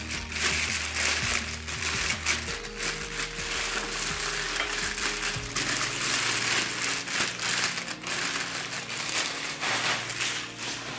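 Packaging being handled during unboxing, a dense crinkling and rustling with many small crackles, over background music of low held notes.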